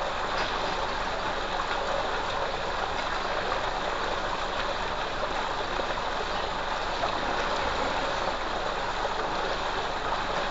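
Steady rushing of water from a tubewell outlet pipe pouring a thick stream into a concrete tank.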